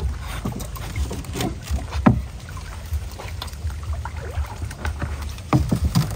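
Sounds of a small boat on the water: a few scattered knocks and splashes over a steady low rumble.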